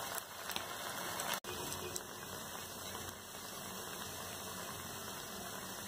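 Potato tikkis shallow-frying in oil on a low flame: a steady sizzle and crackle of bubbling oil, with a brief break about a second and a half in.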